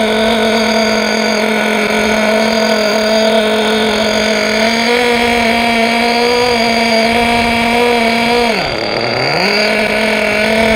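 Alpha Dragon two-stroke nitro engine in a 1/8 RC buggy, warmed up and being run in, running at a steady high-pitched speed. About five seconds in it rises slightly, and about nine seconds in the revs sag sharply and then come back up.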